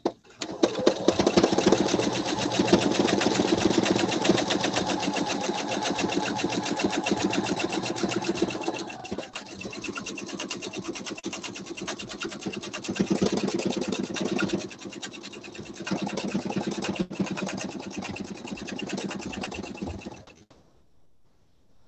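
Pfaff sewing machine stitching in free motion quilting. The needle runs in a rapid, even rhythm while its speed rises and falls several times, and it stops near the end.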